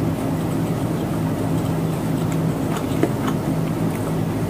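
A steady low machine hum, like a fan or motor, with a few faint clicks of chewing about the middle.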